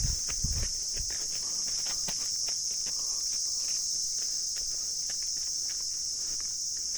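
Insects' steady high-pitched drone filling the forest, with footsteps crunching on dry ground at about two steps a second.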